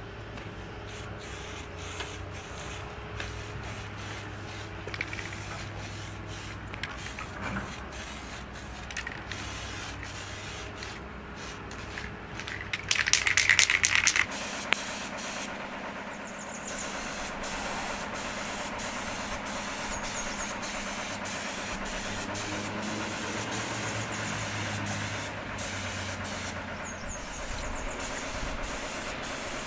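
A steady spraying hiss with scattered clicks, and a loud burst lasting a second or two about halfway through.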